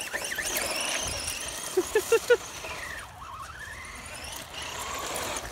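Brushless electric motor of an ECX Ruckus 1/10-scale RC monster truck whining as it is driven hard, the pitch rising and falling with the throttle and climbing again in the second half. A quick run of four short, sharp sounds comes about two seconds in.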